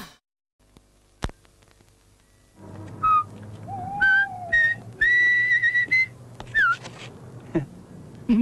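Near silence broken by a single click, then over a low hum a run of short whistled notes, some sliding up or down and one held for about a second.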